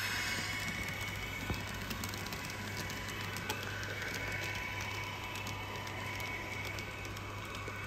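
N-scale model train running on its track: the MiniTrix BR 101 electric locomotive and its coaches rolling along, giving a steady low hum with scattered light clicks of the wheels on the rails.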